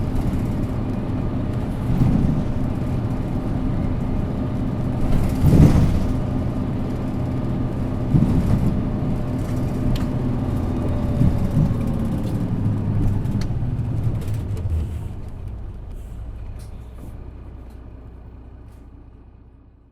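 Isuzu Erga city bus's diesel engine heard from inside the bus, running steadily, with a short loud burst of hiss about five and a half seconds in. The sound fades away over the last few seconds.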